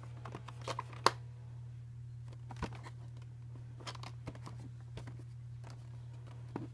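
Hands turning and handling a cardboard box: scattered taps and scuffs of fingers on the cardboard, the sharpest click about a second in, over a steady low hum.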